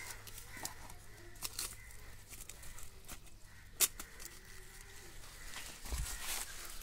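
Rustling leaves and sharp clicks as green brinjals are gathered up by hand, the loudest click a little under four seconds in and a dull thump near six seconds. Under them, a cow moos faintly in the distance.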